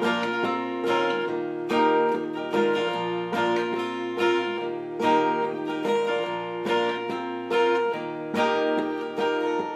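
Two acoustic guitars playing an instrumental break, chords strummed in a steady rhythm with picked notes ringing between the strokes.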